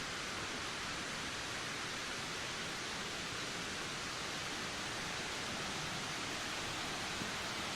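Steady wind with a constant, even hiss and no gusts or breaks.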